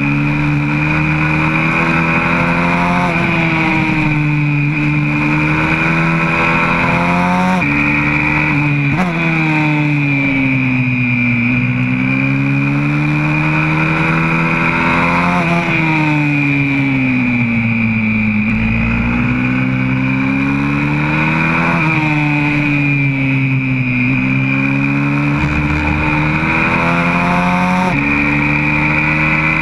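Single-cylinder four-stroke engine of a YCF 125cc pit bike at race pace, its pitch climbing through each gear and dropping sharply at every shift, with slower falls as it slows for corners. Wind rumbles on the onboard microphone.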